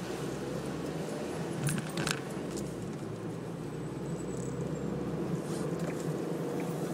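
Suzuki Celerio hatchback driving at highway speed, heard from inside the cabin: a steady hum of engine and road noise, with two brief clicks about two seconds in.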